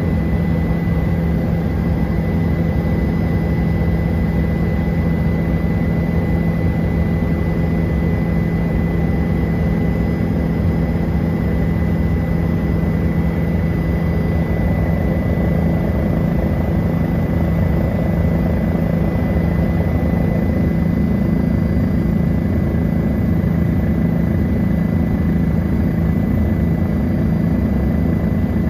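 Helicopter engine and rotor noise heard from inside the cabin in flight: a steady, loud low drone with a thin, constant high whine above it.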